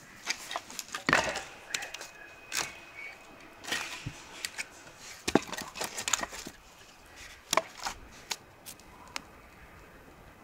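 Irregular sharp knocks and cracks of hard objects, a couple a second. The loudest come about a second in and about five seconds in, and they die away near the end.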